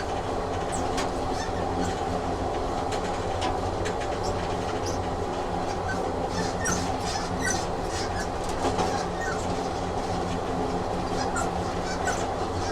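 Train running along the track, heard as a steady rumble with scattered clicks and a few brief high squeaks from the wheels.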